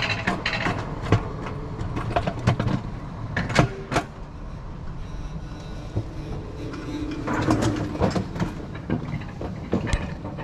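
Alpine mountain coaster cart rattling along its steel rails as it is hauled up the lift section: a steady low rumble with irregular clicks and clanks.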